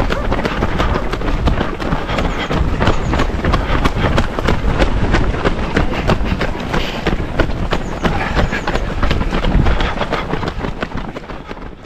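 Footsteps of a crowd of runners on a hard path, many fast overlapping footfalls over a steady low rumble, fading out near the end.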